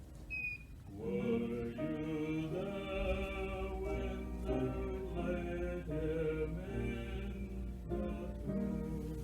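Choir singing with instrumental accompaniment: held notes that move in steps, swelling in about a second in.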